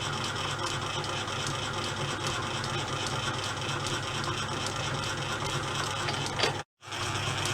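Circa-1895 Pittler C3 lathe running under power, its gears and feed mechanism making a steady mechanical clatter with faint regular ticking. Near the end there is a sharp click, then the sound breaks off for a moment and resumes.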